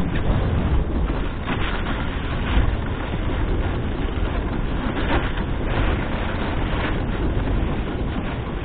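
Dog sled's runners gliding over snow behind a running four-dog team, with wind rushing on the microphone and now and then a brief louder scrape.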